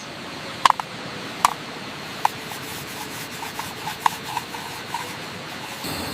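Sharp rubbing scrapes over a steady hiss: three strong ones under a second apart, then lighter, quicker ticks.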